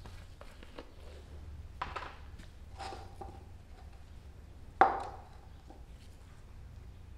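Plastic gallon jug of epoxy resin and plastic mixing cups handled on a wooden workbench: a few light knocks and clatters, then one sharp knock with a short ring about five seconds in, over a low steady hum.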